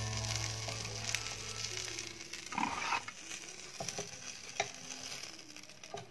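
Buttered sandwiches sizzling on the hot plates of an electric sandwich maker, with a brief scrape and a few light clicks as a wooden spatula lifts them off.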